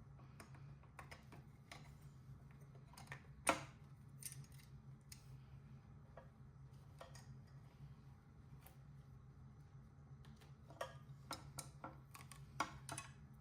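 Scattered light clicks and taps of small metal hand tools, nuts and parts being handled while a motorcycle tail light assembly is taken apart, with a sharper click about three and a half seconds in and a run of clicks near the end, over a low steady hum.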